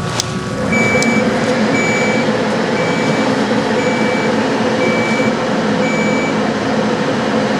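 Class IV therapy laser unit switching on and running: a click, then a steady whir, with six short high-pitched beeps about once a second, the warning tone a Class IV laser gives while it emits.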